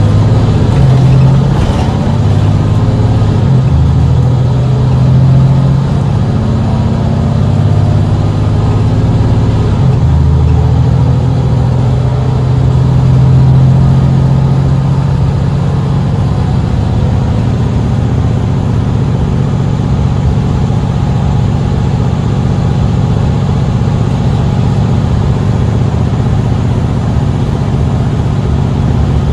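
Mercedes-Benz Citaro C2 city bus engine running under load. The engine note shifts a few times in the first ten seconds, then holds steady.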